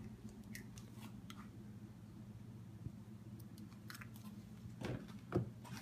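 A raw egg being cracked by hand over a bowl of flour: faint crackling and small clicks of eggshell, a few sharper ones near the end, over a steady low hum.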